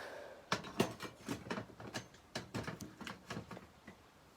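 Irregular clicks and knocks of hard objects being handled and set down, with no steady rhythm, fading out near the end.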